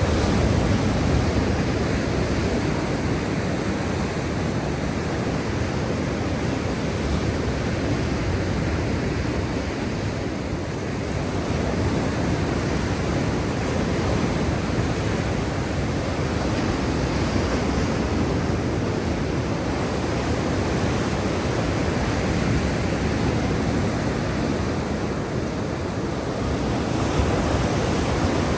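Black Sea surf: a steady, unbroken rush of waves washing in, easing slightly a third of the way in and again near the end.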